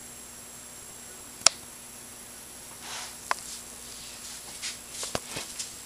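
Dog blowing bubbles in a stainless steel water bowl: soft irregular bubbling and splashing from about three seconds in. A couple of sharp clicks are heard, one about a second and a half in and another a little after three seconds.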